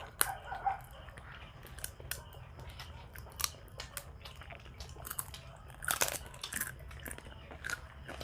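Close-up eating sounds: chewing with crisp crunches of nacho tortilla chips scattered throughout, the loudest crunch about six seconds in.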